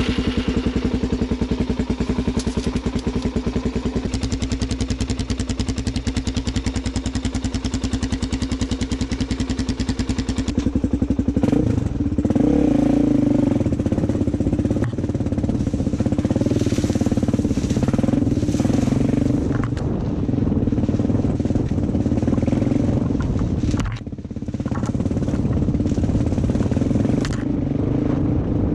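Dirt bike engine running: it idles steadily just after being started, then about eleven seconds in it gets louder and its pitch rises and falls as the bike pulls away and rides, with a brief drop in power near the end.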